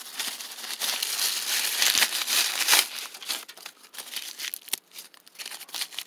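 Dry husks being stripped by hand from an ear of Glass Gem corn: a dense crackling rustle with tearing, loudest in the first half and thinning out in the second.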